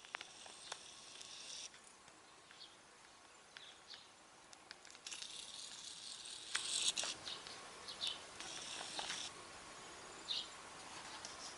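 Faint outdoor ambience: short high chirps scattered through, two stretches of high buzzing hiss (the louder one from about five to nine seconds in), and a few light clicks.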